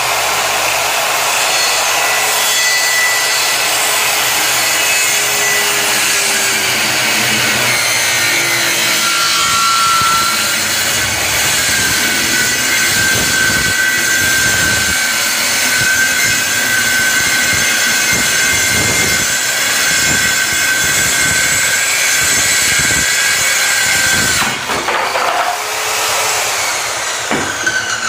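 Circular saw cutting through plywood, running steadily under load for about 24 seconds, then released so the blade winds down. The cut is made with the plywood sagging on uneven supports, which lets it pinch the blade and tug at the saw.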